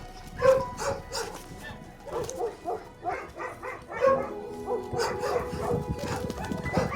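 Several dogs barking repeatedly in short calls, over background music.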